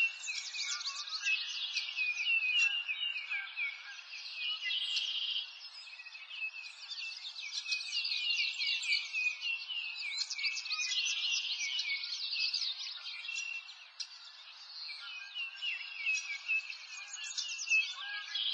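Dense chorus of many small songbirds chirping and twittering over one another without a break, high-pitched with no low sounds beneath. It thins out briefly twice.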